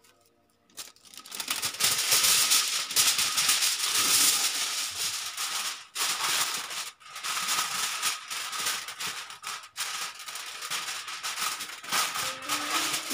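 Aluminium foil crinkling and rustling as a sheet is spread and pressed down over a metal baking tray. It starts about a second in and goes on with short pauses.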